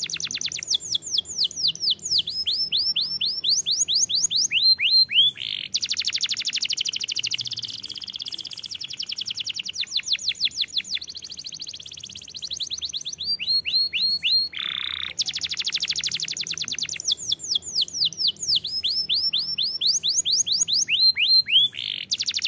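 Domestic canary singing a long, unbroken song of rapid trills: fast runs of repeated notes and quick downward-sweeping notes, changing phrase every few seconds.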